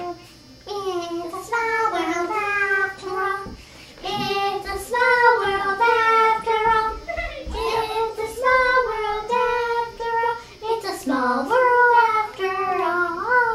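A child singing a tune unaccompanied, holding notes that step up and down with short breaths between phrases.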